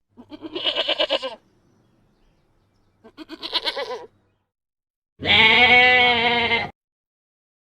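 Goat bleating three times: two short, wavering bleats, then a longer, louder, steadier bleat about five seconds in.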